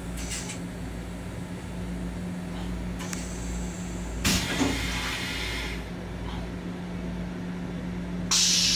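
Restroom of a Long Island Rail Road M7 railcar: a steady hum and a pulsing low rumble from the car, with a knock about three seconds in, a hiss a second later, and a louder hiss starting near the end.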